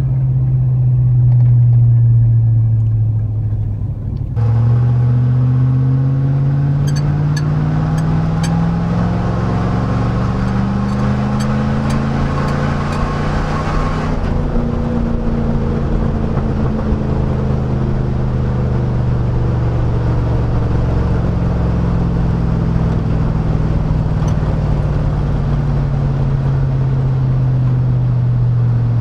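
A 1999 Chevy Silverado's 5.3L LM7 V8 drones through a Cherry Bomb muffler, heard from inside the cab. The note holds roughly steady, changes abruptly about four seconds in, then rises in pitch under acceleration for about ten seconds and falls slowly as the truck backs off.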